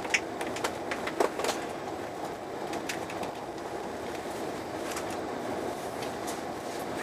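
Eurostar Italia train running along the track, heard from inside the carriage: a steady rumble of wheels on rails, broken by scattered sharp clicks and ticks, the loudest near the start and about a second in.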